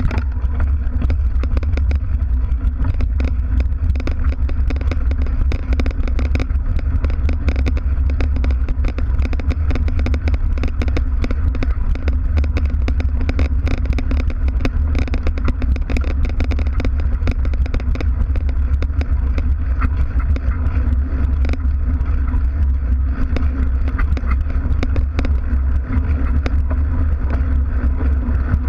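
Mountain bike ridden over dirt farm tracks, heard from a camera fixed to the bike by the rear wheel: a steady low rumble with constant rattling and clicking from the bike and its knobby tyres on the ground.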